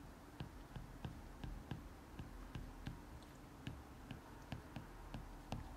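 Faint clicking and tapping of a stylus on a tablet screen during handwriting, about three clicks a second, over a low steady hum.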